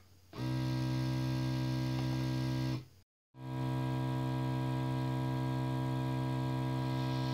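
Sparmax Beetle airbrush compressor switching on about half a second in as the airbrush is lifted off its holder, its light-detecting smart stop restarting it, then running with a steady hum. The hum cuts out briefly around three seconds in and then carries on.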